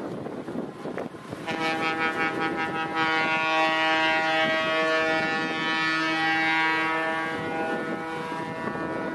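Horn of an approaching Italian-built (Breda–GAI–Marelli) electric locomotive, sounded in one long blast that starts about a second and a half in, gets louder about three seconds in, and stops just before the end.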